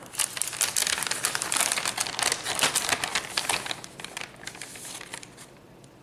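Plastic packaging crinkling and crackling as it is unwrapped by hand, loudest over the first three and a half seconds and dying away by about five seconds in.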